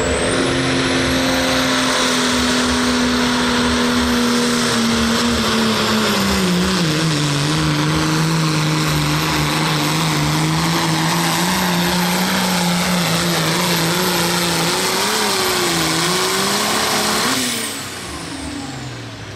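Turbocharged International 886 super stock pulling tractor running flat out while dragging a sled, a high turbo whistle riding over the engine. The engine note drops about six or seven seconds in as the load builds. Near the end the throttle comes off and the whistle winds down.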